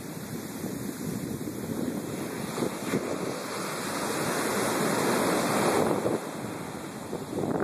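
Ocean surf breaking and washing up onto a sand beach, swelling to its loudest from about two and a half seconds in and easing off around six seconds. Wind is buffeting the microphone throughout.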